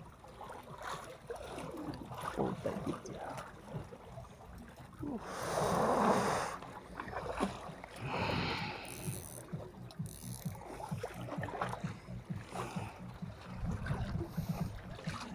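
Sea water sloshing among concrete breakwater blocks, with one louder surge of water about six seconds in, over a steady wash and light wind on the microphone; small knocks and rustles from handling run throughout.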